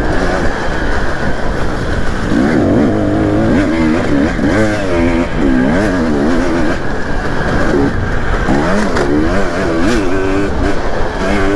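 Two-stroke dirt bike engine heard from the rider's own bike at speed on a motocross track, revving up and dropping back over and over as the throttle is worked and gears change. A heavy low wind rumble on the microphone runs beneath it.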